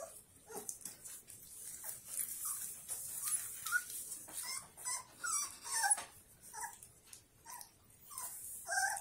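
Four-week-old puppy whimpering in short, high cries that bend up and down, coming most thickly about four to six seconds in.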